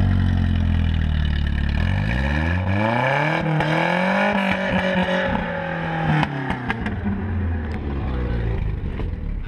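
Pickup truck engine idling, revved up about two seconds in and held high for a few seconds, then dropping back to idle about six seconds in, with a few clicks and rattles.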